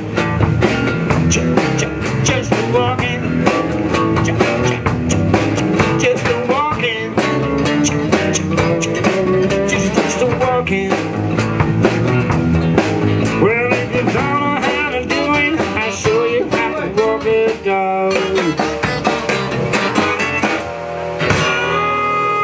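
Live blues played by a small unplugged band: two acoustic guitars, a small drum kit and a bass guitar, with bending, sliding lead lines from a harmonica played into a hand-held vocal microphone. The drums thin out near the end.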